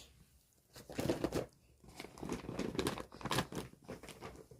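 Fabric of a zippered bag rustling and crinkling in irregular bursts as it is handled and moved.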